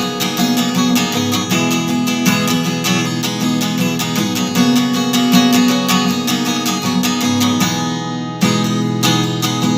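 Instrumental song passage led by a strummed acoustic guitar in a steady rhythm, with a brief break in the strumming about eight seconds in before it picks up again.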